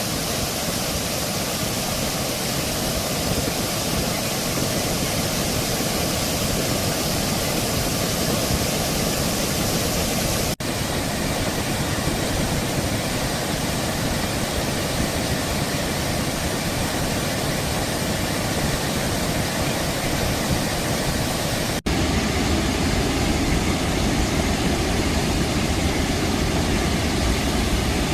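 Water pouring over small cascades and weirs on a stream: a steady, even rushing noise. It changes abruptly twice as the shot changes, and the last stretch carries a deeper rumble.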